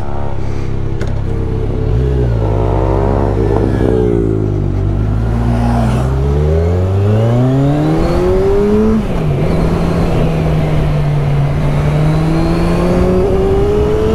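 Kawasaki Z1000SX's inline-four engine under way. The revs climb and fall repeatedly, with a sudden drop at each upshift about 9 and 13 seconds in, and there is a steady rush of wind and road noise.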